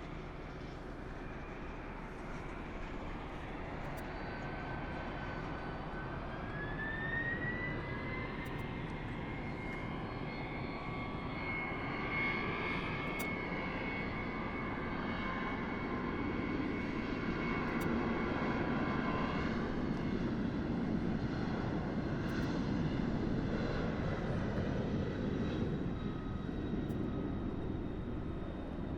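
Jet airliner's engines running: a high whine rises in pitch several seconds in and then holds steady over a broad rumble that grows louder through the second half.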